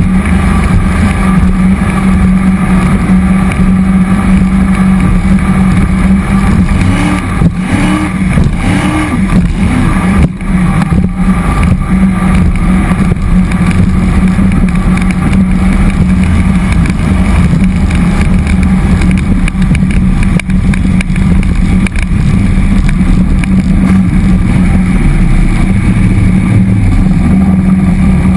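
Jet boat's cammed 5.3-litre LS V8 running at a steady cruise, loud and holding an even pitch throughout.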